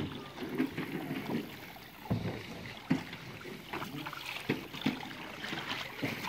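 Canoe paddles dipping and splashing in the water, with several sharp knocks scattered through.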